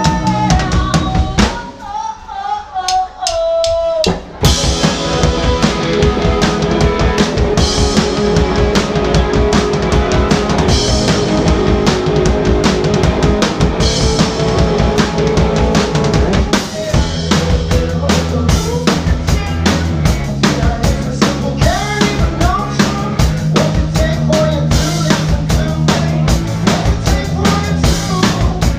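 Live band playing a song, with drum kit, bass and other instruments. About two seconds in the drums drop out briefly under a sliding melodic line, and the full band with drums comes back in about four seconds in.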